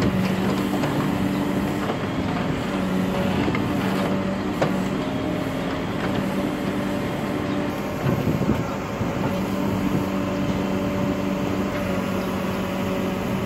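JCB 3CX backhoe loader's diesel engine running as the backhoe arm works, its steady note breaking off and returning every few seconds as the hydraulics take load. A couple of short knocks, one sharp one a little before the middle.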